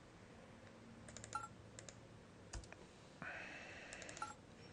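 Faint computer mouse clicks in a few short clusters, about a second in and again near the end, as folders are double-clicked open.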